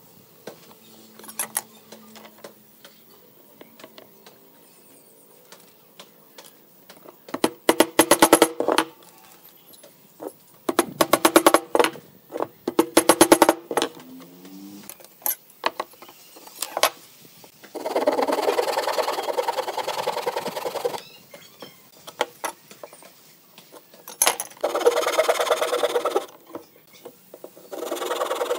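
A hand saw cutting a pine board in runs of strokes lasting a few seconds, about two thirds of the way in, again near the end, and once more at the close. Before that come scattered clicks and two quick runs of sharp knocks from tools handled on the wood.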